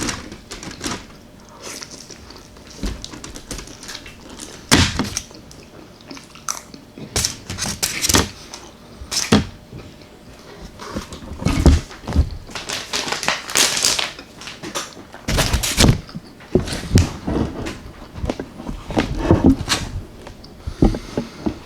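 Close-up eating sounds of a person chewing chicken parmesan: irregular wet chewing, lip smacks and mouth clicks, with scattered sharp knocks throughout.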